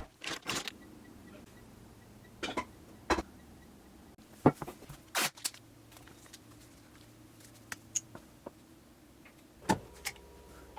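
Handling sounds from work on a golf club: a series of separate clicks, knocks and short scrapes, the loudest a sharp knock about four and a half seconds in, over a faint steady hum.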